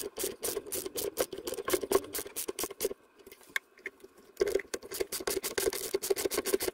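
Screws being driven by hand into a hard wooden mounting board to fix a solar charge controller: two runs of fast clicking and scraping, with a short pause about three seconds in.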